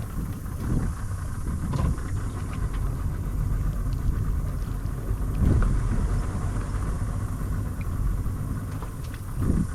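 Boat motor running steadily at low speed, a low rumble with a few faint knocks.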